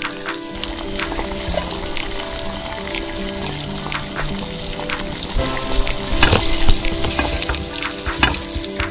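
Garlic and shrimp sizzling hard in hot fat in a wok, with a metal spatula clicking and scraping against the pan as they are stir-fried. The clatter grows louder a little past halfway.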